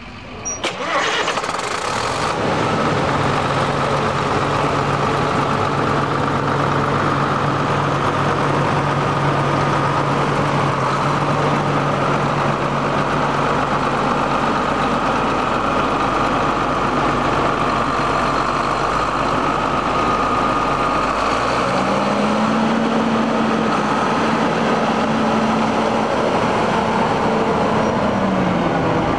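1994 John Deere 8870 4WD tractor's turbocharged six-cylinder diesel starting and catching about a second in, then idling steadily. About three quarters of the way through it is raised to a higher steady speed, then drops back toward idle near the end.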